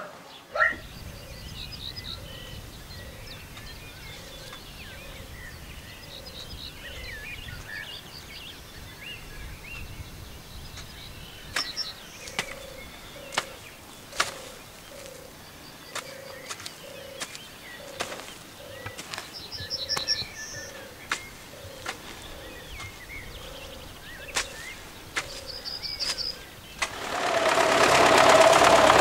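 Birds singing outdoors, with a low call repeating steadily, and from about the middle a series of sharp hoe strikes chopping into soil. Near the end a tractor engine comes in loud and steady.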